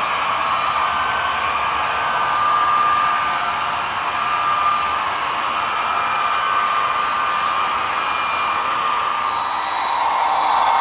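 HO scale model train running on the layout: a steady whirring hiss with thin high-pitched whines, growing louder near the end.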